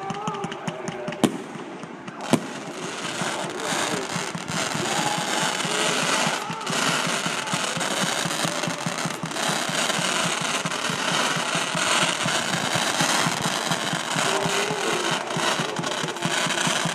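Fireworks display: two sharp bangs about a second apart near the start, then from about three seconds in a dense, continuous barrage of rapid launches and bursts from multishot effects.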